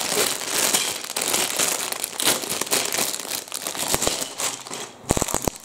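Crinkling of sealed plastic polybags full of Lego bricks being handled and turned over. A quick run of sharp clicks comes near the end.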